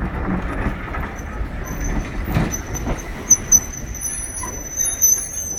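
Railway passenger coaches rolling past along a platform: a low rumble of wheels on rails, with a high-pitched squeal from the wheels. The squeal comes in about a second in and is strongest in the second half, along with a few sharp clicks.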